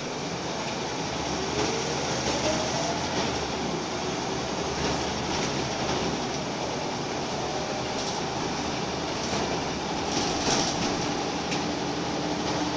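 Interior of a Scania L94UB Wright Solar bus under way: the 9-litre five-cylinder engine and driveline run with a whine that rises in pitch about two seconds in, over steady road noise. There are a few sharp rattles from the body and fittings.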